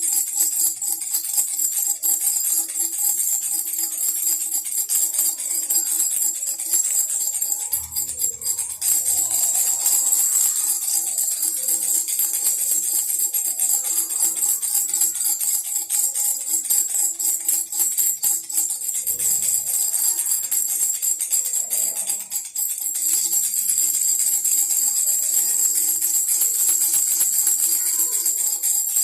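Baby rattle shaken rapidly and continuously, a dense jingling patter over two steady lower tones, with a couple of soft low thuds.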